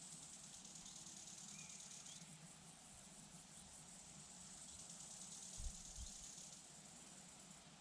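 Faint, steady high-pitched trilling of crickets that drops away and comes back, with a couple of low wind rumbles on the microphone a little after the middle.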